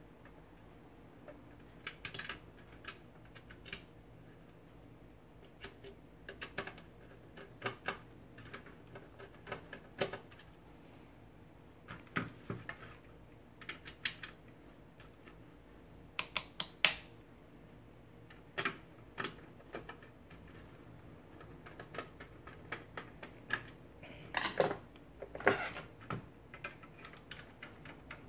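Irregular light clicks and taps of a small screwdriver, screws and the metal case of a satellite receiver being handled and reassembled, with a few louder knocks in clusters.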